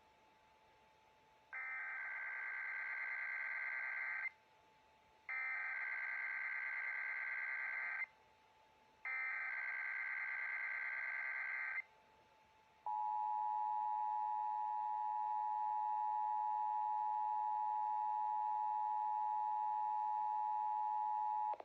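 Emergency Alert System Required Monthly Test signals: three identical bursts of SAME digital header data, each about three seconds long with short gaps between them. Then the two-tone EAS attention signal comes in, a steady dual tone held for about nine seconds that cuts off sharply.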